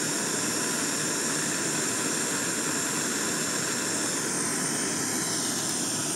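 Propane torch flame hissing steadily as it heats a wire joint to red heat for silver soldering.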